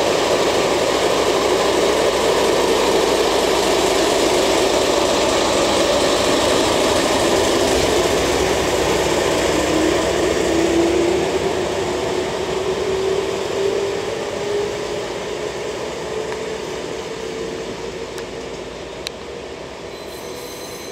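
JR DE10 diesel-hydraulic locomotive pulling away under power, its V12 diesel engine running loud. From about ten seconds in a whine rises in pitch as it gathers speed, and the sound fades steadily as it moves off.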